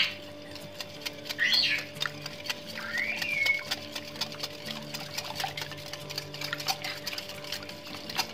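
A fork whisking a runny yogurt-and-oil spice marinade in a glass bowl, clicking rapidly and steadily against the glass.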